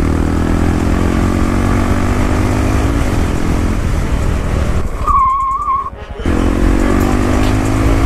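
Honda Grom's single-cylinder four-stroke engine running steadily while the bike cruises, its pitch shifting a little with the throttle. About five seconds in, the engine sound drops away for about a second under a short wavering whine.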